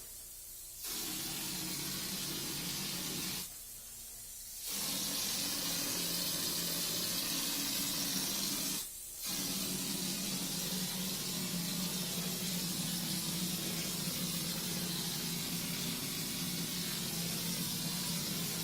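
Air-powered drywall texture hopper gun spraying popcorn texture mud, a steady loud hiss of compressed air and mud. It starts as a softer air hiss, then comes in three spraying stretches with two short breaks, about three and a half and nine seconds in.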